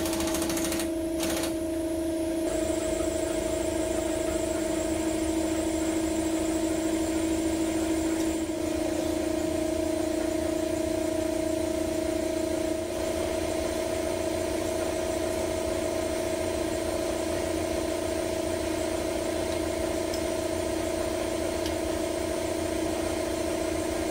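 Air compressor motor running with a steady hum, its pitch stepping slightly a few times.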